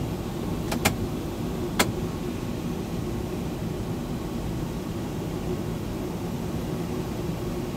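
Steady in-flight noise inside the cockpit of a Pipistrel Taurus glider: air rushing past the canopy with a low, even hum. Two sharp clicks come about one and two seconds in.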